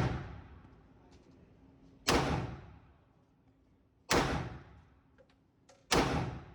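Ruger Security 380 pistol firing .380 ACP rounds in slow fire: three shots about two seconds apart, each with a sharp crack that trails off over about a second.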